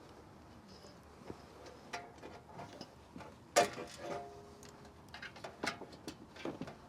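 Scattered clicks and knocks of tools and metal furnace parts being handled during reassembly, with one louder metallic clank about three and a half seconds in that rings briefly.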